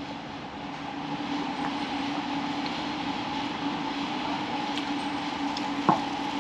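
A steady mechanical hum with a low held tone and a fainter higher one over an even rushing noise, swelling slightly over the first second; a single short click comes near the end.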